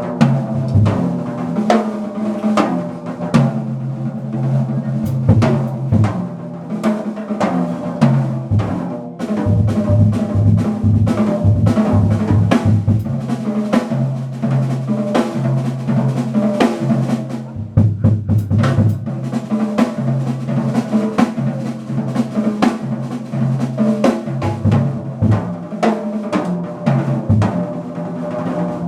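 Small acoustic jazz group playing, with the drum kit to the fore: busy snare, cymbal and bass-drum strokes over held low pitched notes.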